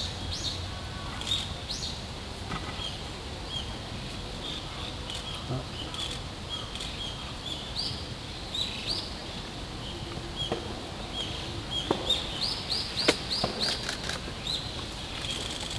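Japanese sparrowhawk nestlings begging at the nest as the female feeds them. Thin, high chirps, each with a quick upward hook, repeat throughout, with a fast run of them near the end and a few faint clicks among them.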